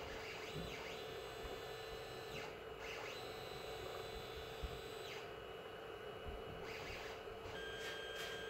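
Creality CR-10 S5 3D printer running: a steady hum with high stepper-motor whines that rise and fall as the axes move. The stepper drivers are fitted with TL smoothers, which the owner thinks may have made a tiny reduction in the noise.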